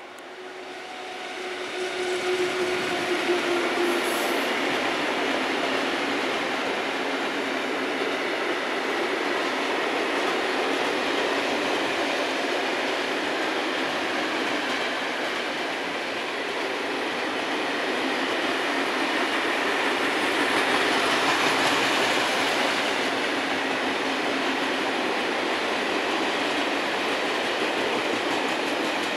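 Long freight train of open coal wagons behind a Škoda 182 electric locomotive rolling past. The steady rumble of wheels on rail swells over the first couple of seconds, and a faint steady tone sounds for the first few seconds as the locomotive goes by.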